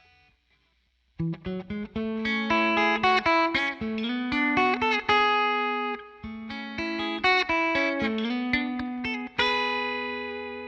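Electric guitar with Zexcoil Legacy Signature pickups in P90 size, played clean straight into a Helix Twin Reverb amp model, using the two outside pickups with the bridge in cut mode and the neck at full power. Starting about a second in, it plays two short phrases of picked notes and chords with string bends, and the second ends on a chord left to ring and fade.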